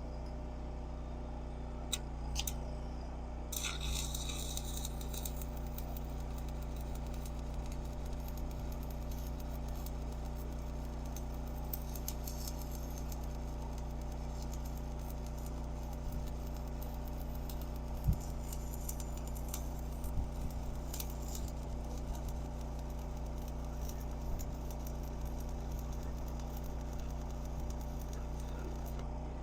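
A steady low hum runs throughout, with a few faint clicks and taps scattered over it.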